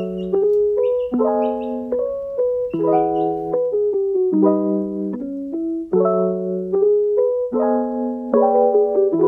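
Background music: chords played on a piano-like keyboard, struck afresh every second or so.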